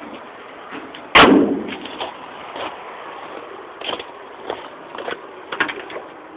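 The steel hood of a 1970 Chevrolet C10 pickup slams shut about a second in: one loud bang with a short ring-out. A few smaller clicks and knocks follow.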